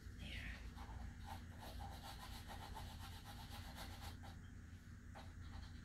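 Faint, quick rubbing strokes of drawing on paper, repeating for a few seconds. A short, high, falling squeak comes right at the start.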